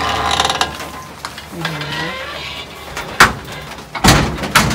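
Rustling, then several sharp knocks and clatters on wood, loudest just after three seconds and again around four seconds. A short low call that dips and rises in pitch sounds about two seconds in.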